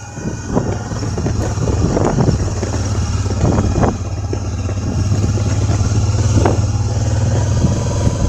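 Vehicle engine running with a steady low drone while driving, with repeated knocks and clatter from bumps on a rough road.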